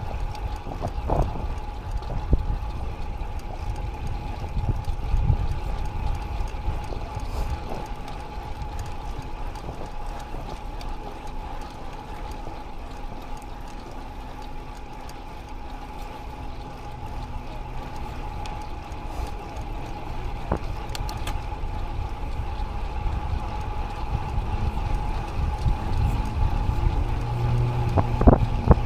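Wind buffeting an action camera's microphone on a moving road bike, over a steady low rumble of tyres on pavement, with a thin steady whine throughout. A low hum swells in the last few seconds.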